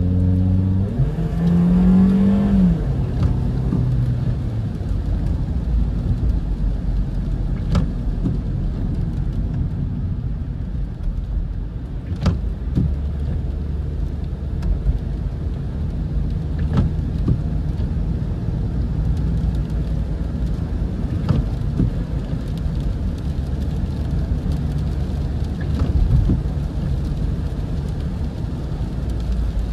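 Toyota Corolla GLI's 1.6-litre engine and wet-road tyre noise heard from inside the cabin while driving in rain. The engine note climbs about a second in and drops a moment later, like the automatic gearbox shifting up, then settles into a steady low rumble with a few faint ticks.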